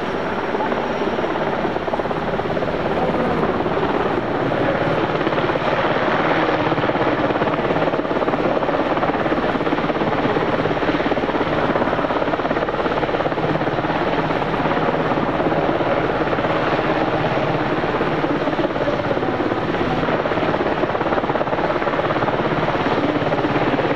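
Mitsubishi UH-60J rescue helicopter (a Japanese Black Hawk with twin turboshaft engines), its rotors beating loudly and steadily.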